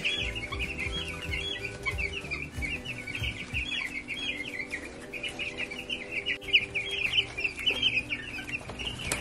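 A brooder full of young Cornish chicks peeping continuously, many short high peeps overlapping.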